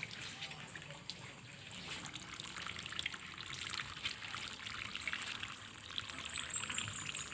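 Faint water trickling, with many small irregular ticks and splashes.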